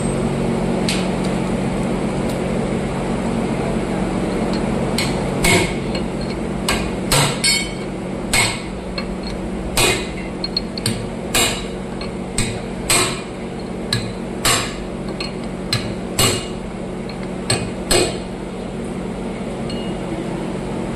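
Hammer blows on metal: about fifteen sharp, ringing strikes at uneven intervals, starting about five seconds in, over a steady low hum. This is the hammering work of fitting a tractor's new rear axle bearing and oil seals.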